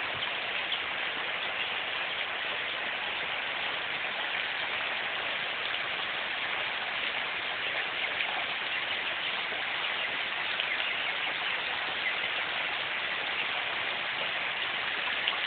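Heavy rain falling steadily, an even hiss of downpour with fine drop ticks on surfaces.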